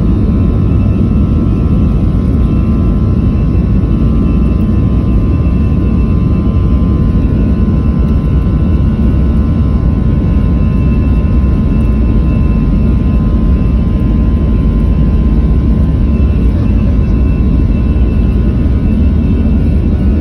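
Airliner jet engines and cabin noise heard from inside the passenger cabin while the plane taxis: a loud, steady low rumble with a faint steady whine on top.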